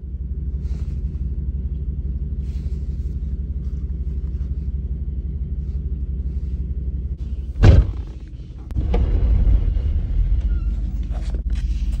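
Wind buffeting the microphone outdoors: a steady low rumble, with one loud knock about two-thirds of the way through and faint small clicks.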